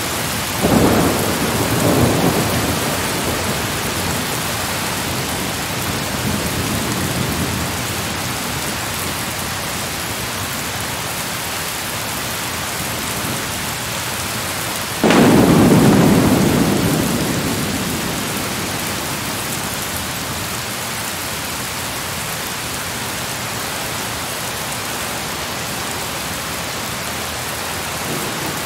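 Steady rain with thunder: two rumbles in the first couple of seconds, then a sudden loud thunderclap about halfway through that rolls away over a few seconds.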